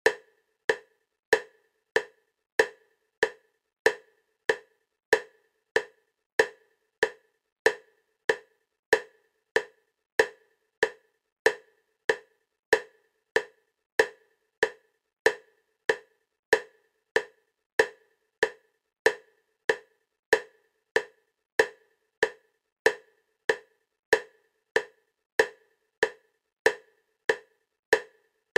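EMDR bilateral stimulation clicks at 96 beats a minute, alternating side to side: a steady train of short, sharp clicks about every 0.6 seconds, each one the same.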